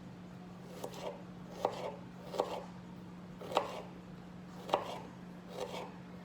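A knife chopping garlic on a cutting board: single unhurried strikes at an uneven pace, about one a second.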